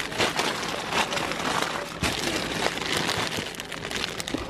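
Clear plastic bags on packaged squishy toys crinkling as they are rummaged through and handled, a steady crackle with many short sharp clicks.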